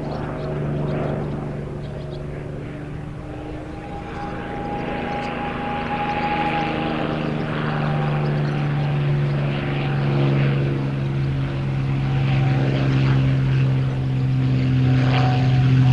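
North American P-51D Mustang's Packard Merlin V-12 engine and propeller droning steadily in flight, growing louder toward the end as the aircraft closes in.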